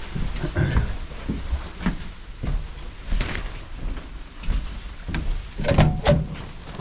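Footsteps and camera handling noise from someone walking outdoors: irregular low thumps about every half second, with a louder clatter of knocks about six seconds in.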